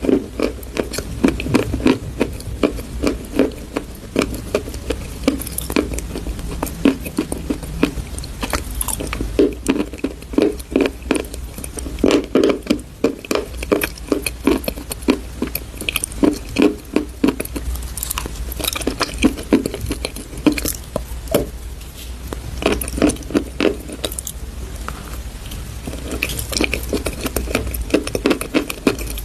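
Crunching and crumbling of chalk paste: a dense run of small cracks coming in repeated louder bursts every second or two.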